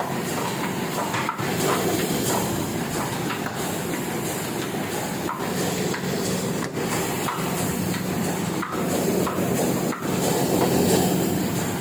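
Heidelberg sheet-fed offset printing press running at speed: a steady mechanical clatter with a hiss.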